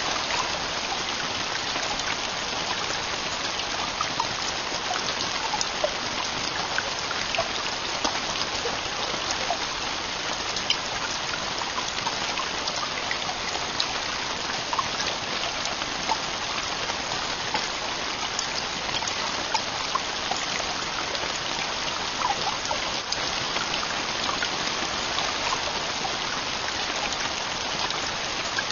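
Heavy rain falling steadily on a camping tent roof, a dense even hiss with many single drop hits standing out.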